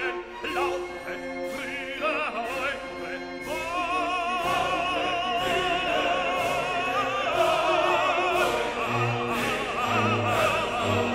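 Background music: an operatic singing voice holding long notes with wide vibrato over orchestral accompaniment, with a steady beat.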